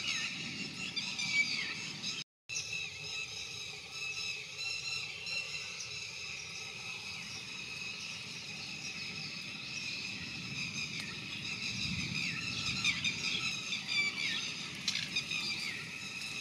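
Red-wattled lapwing calling: high-pitched notes repeated and overlapping almost without pause. The sound cuts out briefly about two seconds in.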